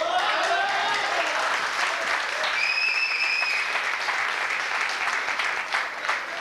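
Audience applauding, with a voice calling out at the start and a whistle held for about a second midway.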